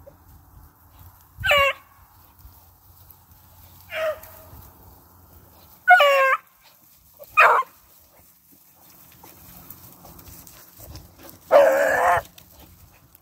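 Beagle rabbit hounds giving tongue: five short baying barks spread a few seconds apart, the last one longer and fuller, as the pack comes in on the trail of the shot rabbit.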